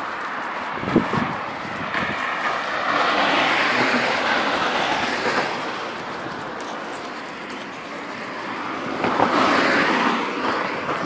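Street traffic noise: passing cars swell up about three seconds in and again near the end, with a single knock about a second in.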